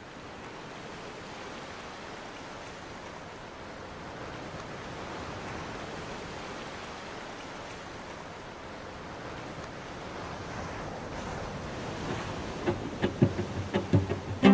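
Ocean surf washing steadily, then about twelve seconds in a cello begins playing plucked pizzicato notes over it.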